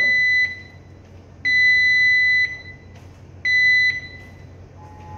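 Electronic alarm buzzer of the JRC JMR-5320 radar display, beeping on one high note about every two seconds, each beep about a second long and the last one cut short. Near the end a lower, steady two-note tone starts up.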